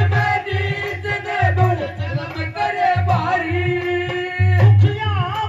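Hindi devotional bhajan: a voice singing a wavering melody over held instrument notes and a steady hand-drum beat.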